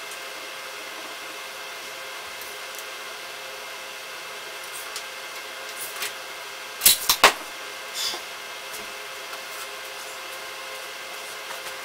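Steady hum of shop equipment. About seven seconds in it is broken by a quick cluster of three sharp clicks, then one more a second later, as a steel tape measure is handled and retracted on a sheet-metal fender.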